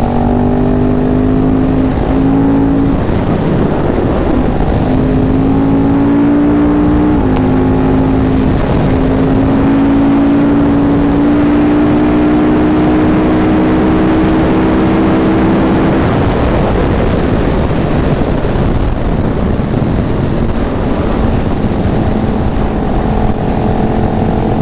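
Sport motorcycle engine under way, heard from the rider's seat with wind rush: the engine note shifts pitch through gear changes early on, then climbs steadily for several seconds as the bike accelerates. After about 16 s the engine note drops away and wind and road noise take over as the bike coasts.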